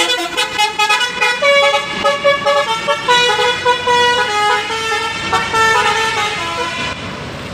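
An intercity bus's multi-tone 'basuri' telolet horn playing a melody of held notes that step up and down, stopping about seven seconds in.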